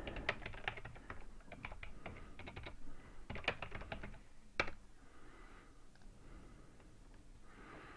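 Typing on a computer keyboard: a quick run of light key taps, ending with one sharper, louder click about four and a half seconds in.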